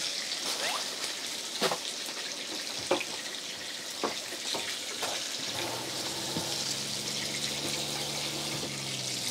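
Beef sirloin frying in margarine in a pan, a steady sizzle with a few sharp clicks. A low steady hum comes in about halfway through.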